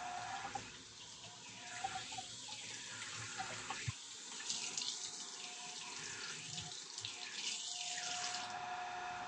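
Tap water running into a sink, with a few small knocks along the way.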